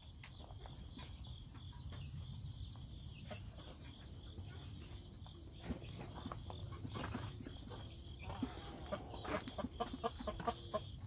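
Steady high-pitched chirring of crickets, with scattered light ticks and taps that grow more frequent in the second half and a few faint chicken clucks near the end.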